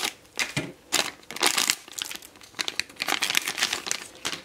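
Foil blind-bag packet crinkling and tearing as it is opened by hand, a run of irregular crackles.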